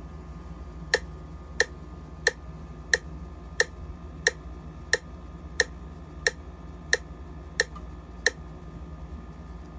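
Online metronome set to 90 beats per minute, ticking from laptop speakers: twelve evenly spaced single clicks, each identical, about two-thirds of a second apart. The clicks stop a second and a half before the end.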